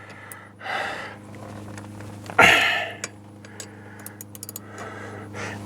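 A steering wheel puller being worked with a hand wrench: two short noisy bursts, the second louder, then a quick run of light clicks, over a steady low hum.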